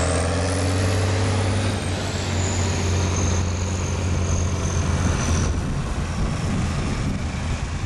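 Antique farm tractors, a John Deere and a Farmall, driving past with their engines running in a steady low drone. A thin high whine rises and then falls over it and stops about five seconds in.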